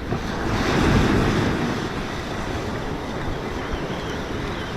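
Ocean surf washing on the beach, with wind buffeting the microphone; the wash swells to its loudest about a second in, then settles to a steady rush.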